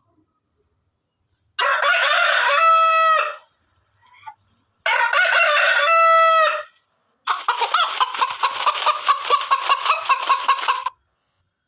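Rooster crowing twice, each crow about two seconds long and ending on a drawn-out note, followed by a few seconds of rapid, repeated chicken clucking.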